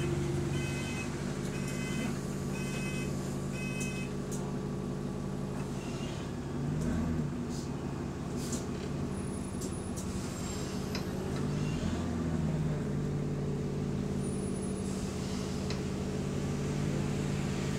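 Steady low hum of a stationary London bus's engine and cooling fan running, heard from the passenger saloon, with the pitch dipping and rising briefly twice near the middle. A run of five short electronic beeps sounds in the first few seconds.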